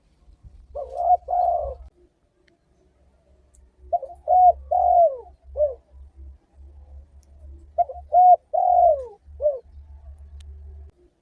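Spotted dove (tekukur) cooing in repeated phrases of a few notes, the longest note sliding down in pitch, with a phrase about every three to four seconds. A faint low hum comes and goes underneath.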